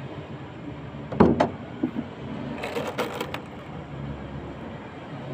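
Tools and small parts being handled on a concrete ledge: two sharp knocks about a second in, then a short run of clicks around three seconds, over a steady low hum.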